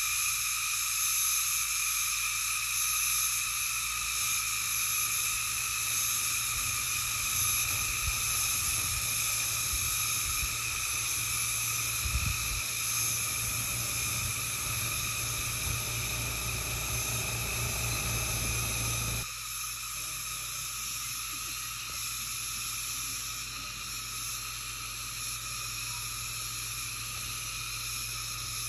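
Steady, high insect chorus in forest. Underneath it a low rumble comes and goes, then cuts off abruptly about two-thirds of the way through.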